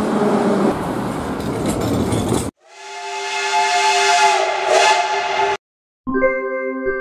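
A metro train arriving at a station, with a dense rushing rumble. It cuts to a steam locomotive's whistle: a chord of steady tones over the hiss of escaping steam, held about three seconds. After a brief silence, an electronic jingle starts near the end.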